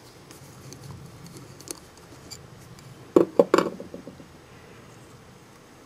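Small metal clicks and taps of a screwdriver and jets against a carburetor body as the main and pilot jets are unscrewed and swapped, with a short cluster of louder sharp knocks about three seconds in.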